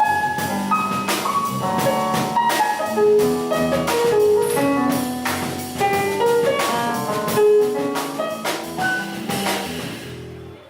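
Jazz piano trio playing, with a drum kit: the piano picks out random single notes over the band's chords, ignoring the harmony, so the melody sounds deliberately off. The band stops shortly before the end.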